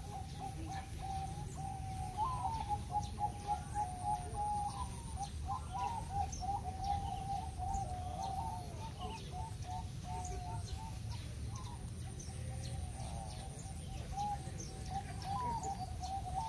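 A chorus of many caged zebra doves (perkutut) cooing at once, their notes overlapping into a steady run of coos, with quick rhythmic phrases a few seconds in. Faint higher chirps sound now and then.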